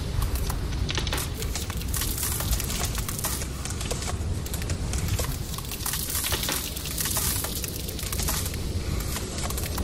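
Sound-design track of dense, irregular crackling and crunching over a steady low rumble.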